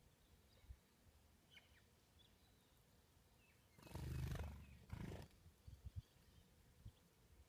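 Wings of a large bird flapping as it flies close past: a loud flurry of wingbeats about four seconds in, then a second, shorter flurry. A faint bird chirp comes about a second and a half in.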